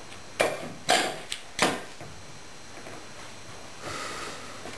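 Four short, sharp clicks and knocks in the first two seconds, from a small plate on a wooden floor being nudged by a Border Collie puppy. A faint steady tone follows near the end.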